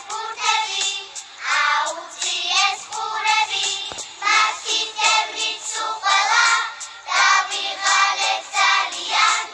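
Young girls singing a Georgian children's song together over backing music, with a brief click about four seconds in.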